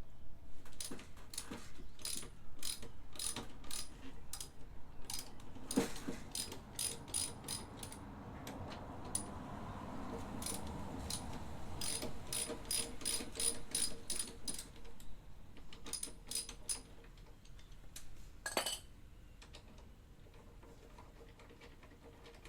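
Ratchet wrench clicking in quick runs of strokes as a bolt or nut on the scooter's front end is turned, with one louder metallic knock near the end.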